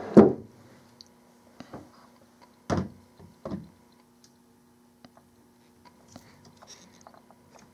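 Handling noises of a 12 V sealed lead-acid battery: a thump at the very start, then a few scattered knocks and clicks as a plastic terminal protector is pushed onto its terminal, the strongest about three seconds in, over a faint steady hum.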